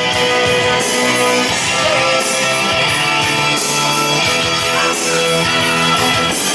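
Guitar-driven rock entrance music played loud over the arena sound system.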